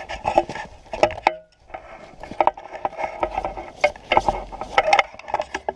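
Irregular clatter of knocks, clicks and rustling, as of gear being handled close by.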